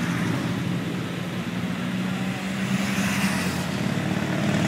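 Motorcycle engines running steadily, with a column of motorcycles approaching along the road; the sound grows a little louder near the end.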